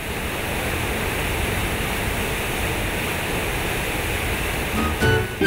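Water pouring from the square spouts of a concrete fountain and splashing into its pool, a steady rushing sound that fades up in the first second. A few musical notes come in near the end.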